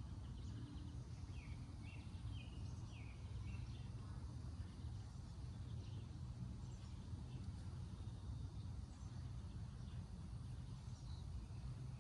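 Outdoor backyard ambience: a steady low rumble with small birds chirping now and then, a quick run of short chirps in the first few seconds.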